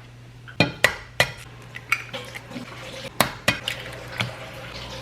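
Kitchen clatter: a pot and utensils clinking and knocking, about half a dozen sharp separate knocks over a steady low hum.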